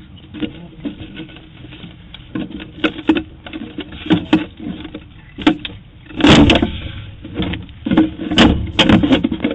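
Irregular knocks and thumps, a few scattered ones and then heavier bangs: the loudest comes about six seconds in, and two more come near the end.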